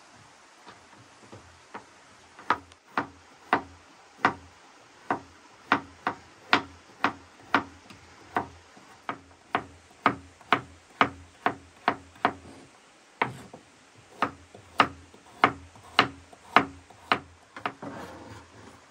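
Chef's knife slicing a carrot on a wooden cutting board: a steady run of sharp knocks as the blade hits the board, about two a second, with a short pause a little past the middle.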